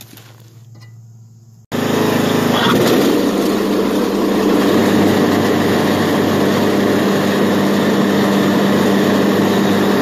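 A few faint wrench clicks, then, a little under two seconds in, a Troy-Bilt riding lawn mower's engine running steadily with its blades fitted. The original undamaged blades are back on, and it sounds much better.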